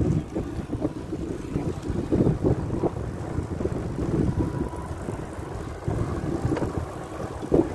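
Wind buffeting the microphone of a camera on a moving bicycle: an uneven low rumble that swells and dips with the gusts of the ride.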